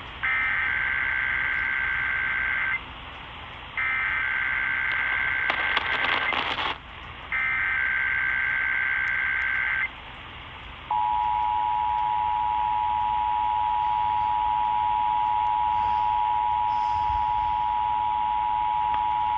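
Emergency Alert System header: three identical bursts of buzzy digital data tones, each about two and a half seconds long with a short gap between, with a crackle of static over the second. Then comes the two-tone EAS attention signal, held steady for about eight seconds, announcing a required weekly test.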